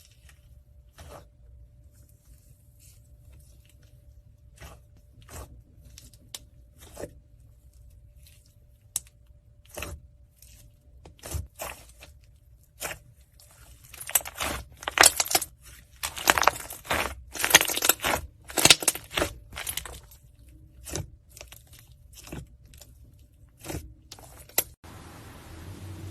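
Slime being played with by hand, making sharp scattered clicks and crackles that come thick and loud about halfway through, then thin out and break off near the end.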